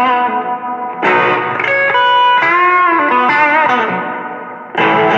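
Strat-style electric guitar played through a Fuzz Face fuzz pedal and Boss SD-1 Super OverDrive into a Fender Champion 20 practice amp, making a thick fuzzy lead tone. Sustained notes with string bends and vibrato; a note fades away, then a new chord is struck near the end.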